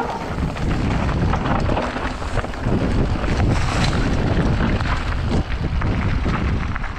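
Wind buffeting the microphone of a camera on a descending mountain bike, with the tyres rolling over dirt and stones and the bike rattling in many small knocks.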